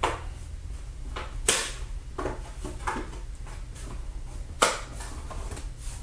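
Sharp clicks and snaps of a Dell M2800 laptop's bottom access cover as it is pressed down onto the base and its tabs seat. The loudest clicks come at the start, about a second and a half in, and near the end, with fainter ones between.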